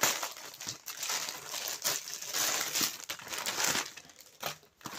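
Parcel packaging crinkling and rustling in irregular bursts as it is pulled open by hand, quieter near the end.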